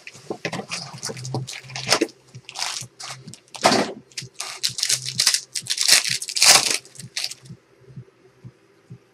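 Wrapper of a Panini Prizm jumbo pack of basketball cards being torn open and crinkled, with the cards handled, in rapid bursts of rustling. About seven and a half seconds in it gives way to faint ticking, about two a second.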